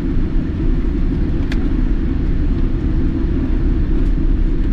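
Steady low rumble of a Boeing 787-9 airliner heard inside the passenger cabin, with a faint short tick about one and a half seconds in.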